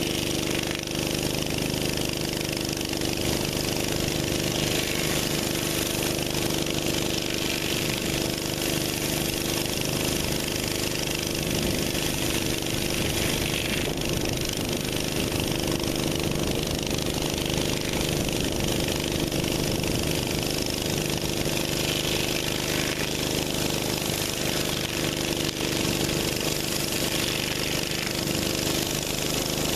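A pressure washer's gas engine runs steadily under a continuous hiss of high-pressure water from a Mi-T-M 20-inch surface cleaner, whose spinning spray bar scours the concrete.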